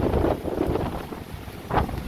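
Wind buffeting the microphone: an uneven low rushing that swells and drops, with a sharper gust near the end.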